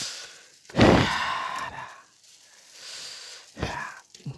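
Cardboard mystery box being handled and pulled open: a sudden knock about a second in followed by about a second of rustling, then softer knocks near the end.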